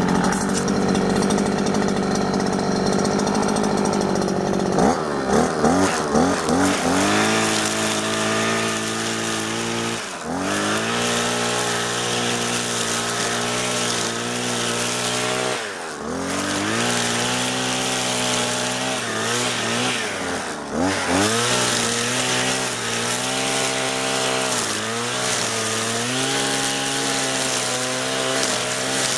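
A 43 cc two-stroke brushcutter (Vito VIR43E) with a nylon-line head, running low for a few seconds, then revving up about five seconds in and held at high revs while cutting grass. The revs dip briefly three times and climb back each time.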